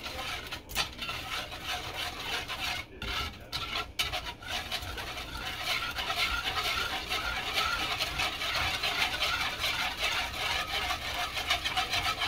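Wire whisk beating a thin liquid sauce in a wooden bowl: a rapid, steady swishing and ticking of the wires against the wood, with a few brief pauses in the first four seconds.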